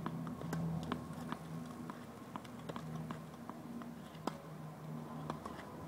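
Tennis ball bounced repeatedly on a hard court before a serve: a string of light pops about two a second, one louder about two-thirds of the way through.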